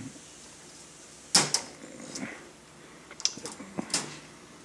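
Metal clicks and rattles of a wire-mesh cage door and its latch being handled: a sharp knock about a second and a half in, then a scatter of lighter clicks near the end.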